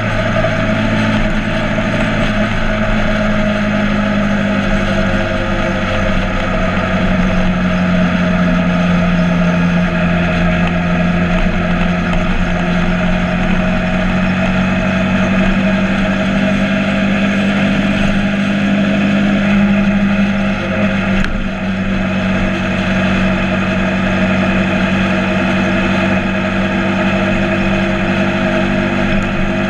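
Motorcycle engine running steadily while riding, its pitch shifting a little, with a brief dip in level about two-thirds of the way through.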